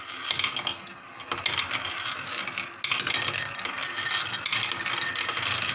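Glass marbles rolling and rattling around a wooden swirl bowl and marble-run track, with sharp clicks as new marbles are dropped in, about a second and a half apart.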